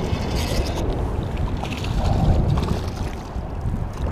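Wind rumbling on the microphone over water lapping against shore rocks, with a couple of short hissing rustles in the first two seconds.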